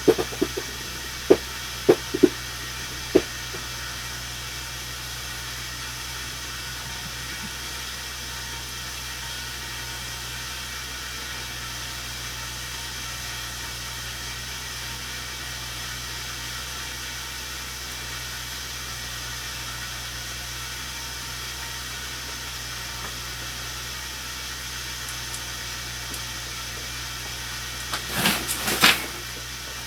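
Steady rumbling noise with hiss, with a few sharp knocks in the first three seconds and a quick cluster of louder knocks near the end.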